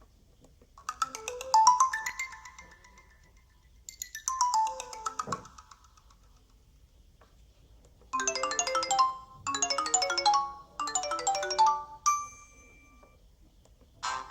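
Alcatel 3088 phone ringtones playing, short electronic melodies. A tune in two phrases comes first, then after a pause a different tone of three quick runs of notes ending in a single high ding.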